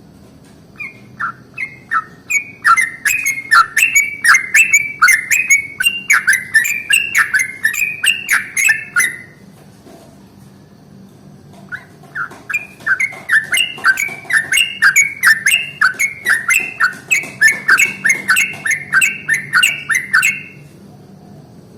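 Yellow-vented bulbul (trucukan) singing its long rolling song: two runs of quick, bubbly, upward-flicking notes, each lasting about eight seconds, with a short pause between them.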